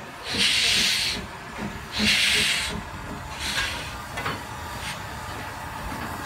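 Steam locomotive pulling away slowly, its exhaust and cylinder steam giving long hissing chuffs about one and a half seconds apart. After the third chuff they turn weaker and shorter.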